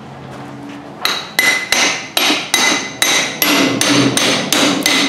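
Hammer striking a brass punch to drive a CV joint off its axle shaft against the snap ring: a run of about ten sharp metallic taps, roughly two and a half a second, starting about a second in, each ringing briefly.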